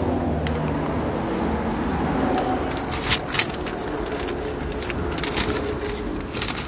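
Steady low rumble of an idling car, heard inside its cabin, with a few scattered clicks and rustles of things being handled.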